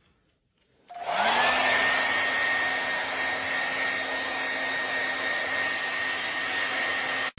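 Handheld vacuum cleaner switched on about a second in, its motor whine rising quickly to a steady high pitch over a rush of air, as it is run over a dog's coat.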